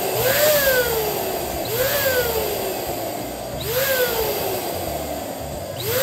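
Electric balloon pump running steadily, blowing air to inflate a balloon. A whooping tone rises sharply then slides down about every two seconds over the steady rush of air.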